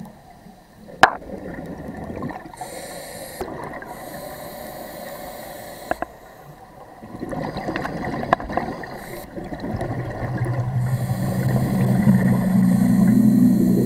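Underwater sound of a scuba dive: the diver's regulator hissing on inhalations and exhaled bubbles gurgling, with a sharp click about a second in. From about ten seconds a low, steady ambient music drone swells in underneath.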